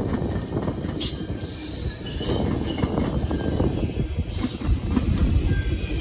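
GO Transit bilevel passenger coaches rolling past close by: a steady low rumble of steel wheels on rail, with short high-pitched wheel squeals several times.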